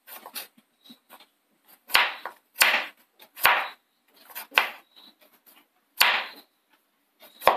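Kitchen knife chopping through peeled raw tapioca (cassava) onto a wooden cutting board: about six separate chops at uneven intervals, each a sharp knock with a short rasp after it.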